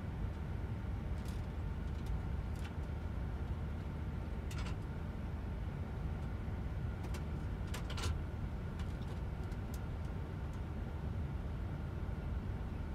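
Steady low rumble of a bus's idling engine heard from inside the cabin while it stands still, with a few irregular light clicks scattered through.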